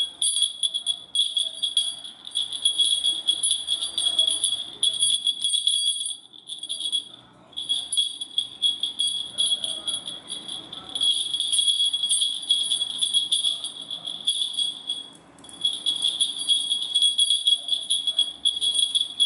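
Small jingle bell on a cat wand toy jingling almost without a break as cats bat at it, with two short pauses, about a third of the way in and about three quarters through.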